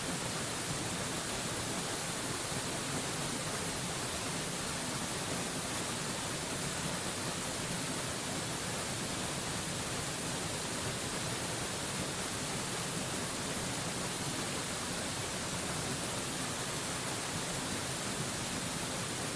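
Waterfall rushing steadily: an even, unbroken hiss, strongest in the high range, with no change in level.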